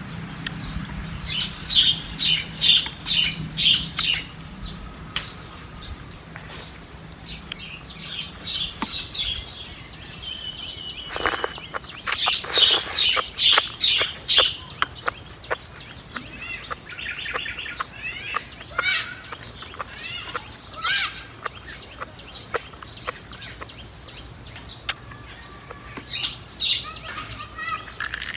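Birds chirping in several bursts of rapid, repeated high calls, with a short held whistle-like note about eleven seconds in.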